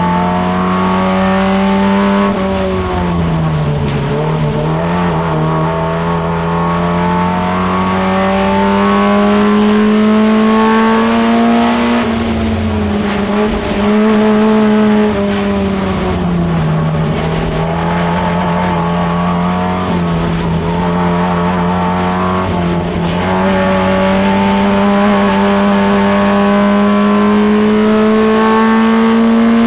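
Holden Gemini race car's four-cylinder engine heard from inside the cabin at racing speed. Its note climbs slowly along each straight and drops away sharply for the corners, about four times.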